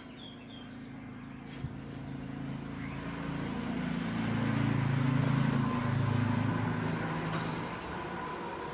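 A motor vehicle passes by. Its engine hum and road noise build, are loudest about halfway through, then fade. Birds chirp briefly at the start and near the end.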